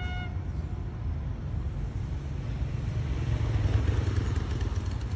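A horn note cuts off just after the start, then the low, steady engine rumble of the D20E diesel locomotive drawing near, growing a little louder around the middle.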